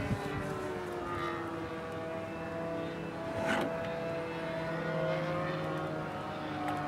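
Radio-controlled model airplane's engine and propeller droning overhead, the pitch slowly shifting up and down as the plane manoeuvres.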